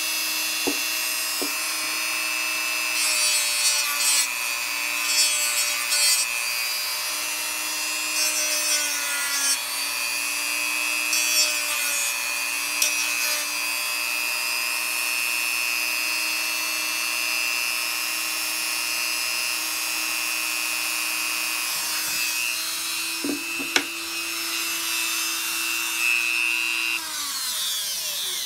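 Hyper Tough 1.5 amp variable-speed rotary tool running at a steady whine while sanding wood, with scratchy bursts each time the bit bites in. Near the end it is switched off and winds down.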